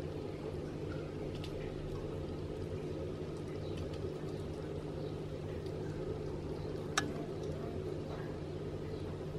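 Aquarium filter running: a steady low hum with a watery hiss, and a single sharp click about seven seconds in.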